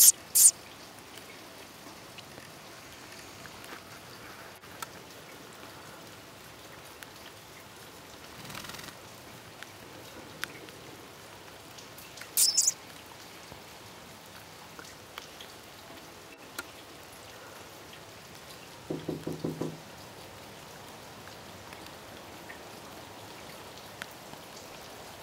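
Steady light rain patter. Two brief, sharp, very high chirps, one at the start and one about twelve seconds in, cut through it, and a short run of rapid low pulses comes around nineteen seconds.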